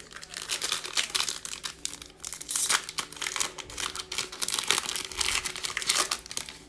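A foil trading-card pack wrapper being torn open and crinkled by hand, a continuous crackling with many small sharp crackles.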